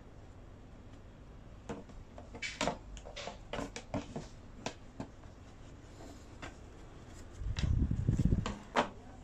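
Handling noise from the opened plastic vanity mirror being worked on by hand: a run of small clicks and knocks, then a louder dull low rumble about three-quarters of the way through and one last click near the end.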